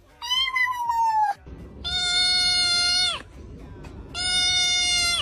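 Kittens meowing: first one short meow that rises and then falls in pitch, then two long, level, drawn-out meows about a second apart, each dropping in pitch as it cuts off.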